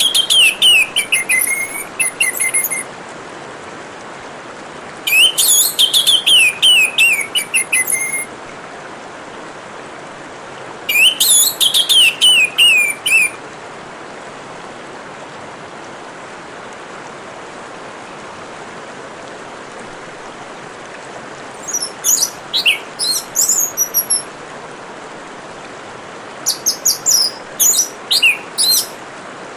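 Orange-headed thrush singing five separate phrases of quick, varied, high notes, each two to three seconds long, with longer pauses between them. Under the song, water trickles steadily.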